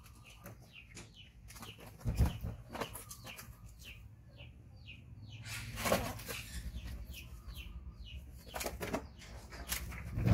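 Monkeys scampering and jumping on a bed: rustling with three heavy thumps about two, six and ten seconds in as they land, mixed with many short, high, falling chirps.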